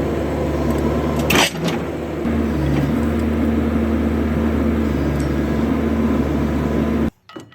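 Excavator's diesel engine running steadily, with a single sharp knock about one and a half seconds in. The engine sound cuts off suddenly near the end.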